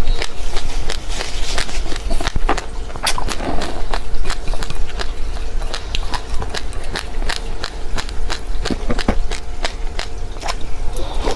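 Close-up chewing of crunchy seeds: a rapid run of crisp crackles and clicks, several a second, over a steady low hum.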